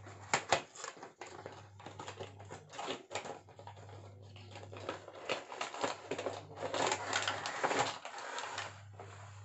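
Cardboard product box being handled: slid out of its outer packaging and turned over, giving an irregular run of taps, knocks and scraping rustles, busiest near the end.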